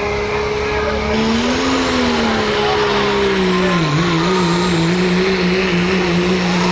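Turbocharged diesel pickup engine revving hard at the start of a truck pull. Its pitch swells and falls back, then drops about four seconds in as it takes the load of the sled, and runs on with a wavering pitch.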